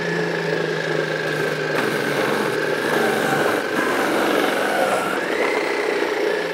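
Ninja Foodi Power Blender Ultimate System's motor running with the grater disc, grating a carrot fed down the chute: a steady, high motor whine that sags slightly and rises again about five seconds in.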